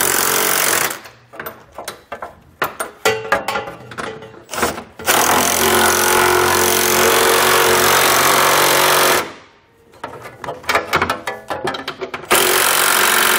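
Impact wrench hammering bolts tight through a 3/4-inch socket on a long extension and swivel, snugging down fifth-wheel base-rail hardware. It runs in three long bursts, with quick stuttering blips between them.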